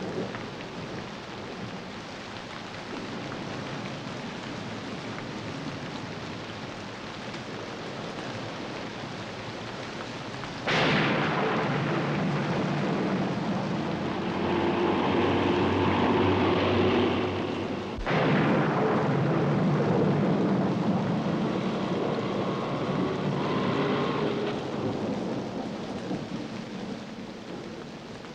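Steady heavy rain, with two sudden claps of thunder, the first a little over ten seconds in and the second about seven seconds later, each rolling on in a long rumble that slowly fades.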